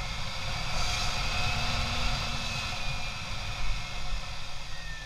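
A motorcycle on the move: wind rushing over the microphone, with the bike's engine running underneath. The hiss gets briefly stronger about a second in.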